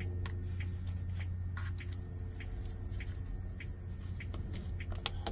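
Light clicks and taps of a gloved hand and small tool prying at plastic engine-bay parts, with one sharper click about five seconds in, over a steady low background hum.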